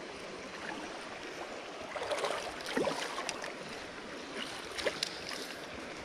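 Creek water running as a steady rush, with a few brief small splashes about two to three seconds in and again near the end.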